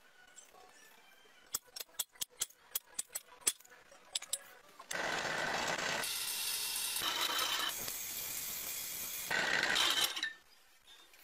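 An electric drill boring holes through steel plate, running steadily for about five seconds with sudden jumps in level, then stopping. Before it, a quick run of sharp clicks.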